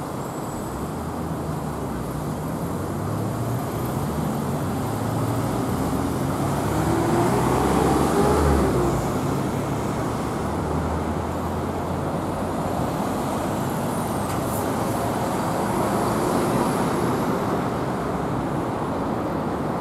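Road traffic going by on a multi-lane road: a steady rumble of engines and tyres, swelling as a vehicle passes close about eight seconds in, then easing off.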